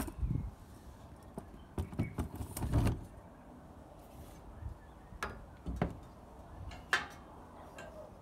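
Small metal parts being handled and fitted against a steel awning frame: a scatter of clinks and knocks, busiest and loudest about two to three seconds in, then a few single sharp clicks.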